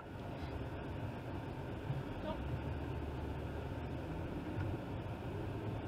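Faint, steady low hum of a car's engine and road noise heard from inside the cabin.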